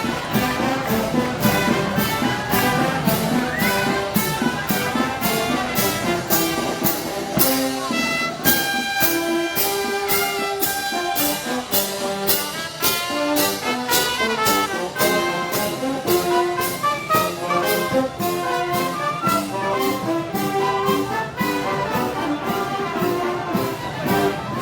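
Brass band music, with trumpets and trombones carrying the melody over a steady percussion beat of about two strokes a second.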